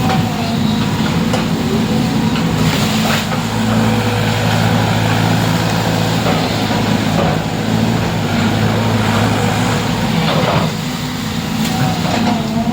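An engine running steadily at a constant speed, with a few brief knocks over it.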